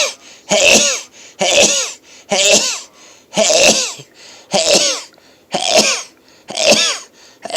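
A person in a rapid sneezing fit: about eight loud, explosive sneezes in a row, roughly one a second, each with a falling vocal pitch. It is a morning sneezing attack in someone who describes themselves as a chronic sneezer without real allergies.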